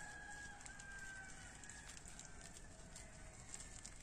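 Small wood fire crackling faintly, with a bird's single long, held call behind it in the first half.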